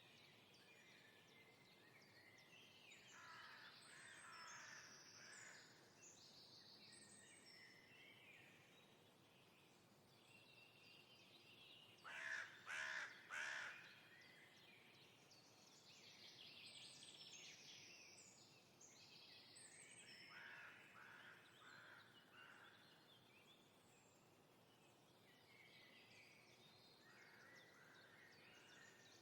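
Birds singing in a natural soundscape, with three loud, harsh calls in quick succession about twelve seconds in.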